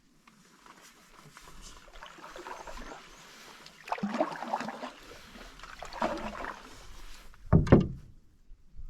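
Canoe being paddled through a shallow rocky channel: irregular paddle strokes and swishing water, with a loud low thump near the end.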